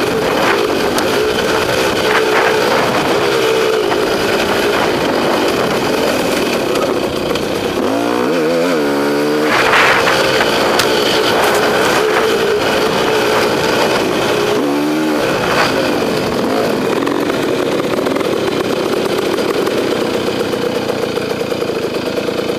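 KTM two-stroke enduro motorcycle engine running under throttle on a dirt trail, heard from a helmet camera. The engine note swings sharply up and down about eight seconds in and again around fifteen seconds in.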